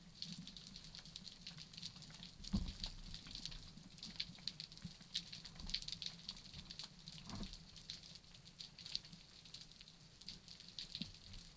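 Underwater crackling of a rocky reef: a dense, faint stream of tiny sharp clicks typical of snapping shrimp. Two dull low thumps come through, one a couple of seconds in and another a little past halfway.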